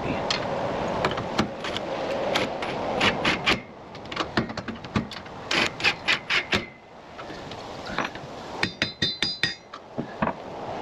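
Irregular knocks, taps and scrapes of hand tools and metal hardware being worked while a rack is fitted to a trailer. A short run of ringing metallic clinks comes a little before the end.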